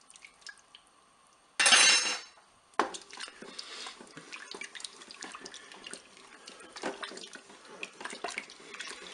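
A metal spoon stirring yogurt into a watery chicken-and-mushroom sauce in a multicooker's cooking bowl: a run of quick wet clicks and scrapes of the spoon against the bowl, after a brief loud rush of noise about two seconds in.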